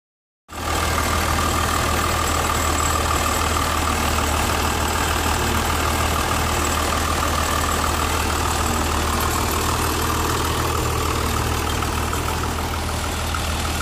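Diamond core drill rig running steadily: a constant low engine drone with a steady higher whine on top.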